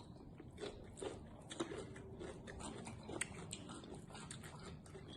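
Faint chewing and biting into deep-fried frog legs coated in Hot Cheetos, with scattered small crunches and mouth clicks.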